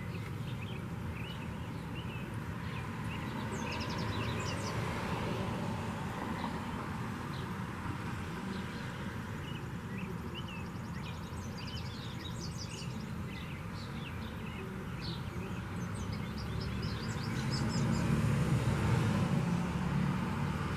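Small birds chirping and twittering in many short, high calls, some in quick trills, over a steady low rumble.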